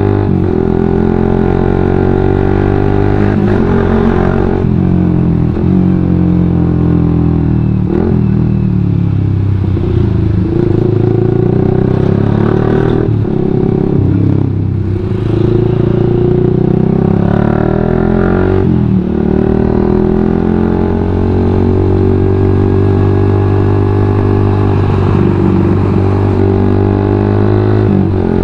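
Suzuki GSX-R150's single-cylinder engine running through an aftermarket WRX GP5K1 full-system exhaust, heard from the saddle while riding. The exhaust note climbs in pitch as the throttle opens and drops sharply, again and again, as the bike accelerates and shifts through traffic.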